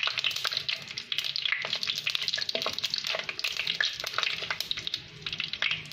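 Whole spices (cinnamon, cloves, cardamom and bay leaves) sizzling and crackling in hot oil and ghee in a clay pot, stirred with a wooden spatula. The crackle is dense and irregular, with many small pops.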